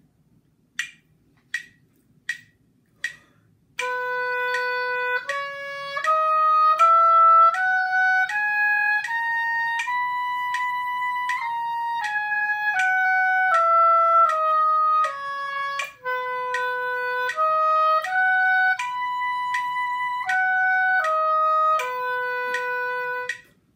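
Four metronome clicks count in, then an oboe plays the concert B major scale up an octave and back down, then the B major arpeggio up and down. The notes are tongued going up and slurred coming down, with the bottom and top B's held longer.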